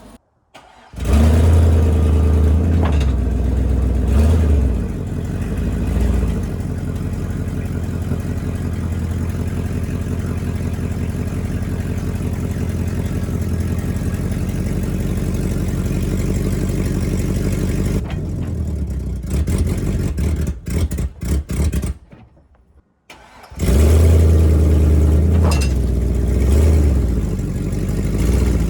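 Chevrolet Silverado's 6.0-litre LS V8 starting, revving and running. About two-thirds of the way through it stumbles and cuts in and out, dies briefly, then starts again and revs, which fits the fuel problem the owner blames for it not staying running.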